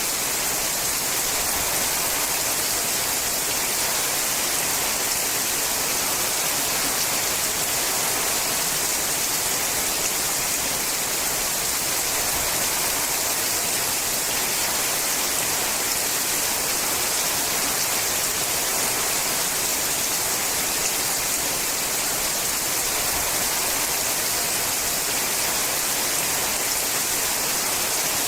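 Steady, heavy rain falling on a sheet-metal roof: a dense, even hiss with no single drops standing out.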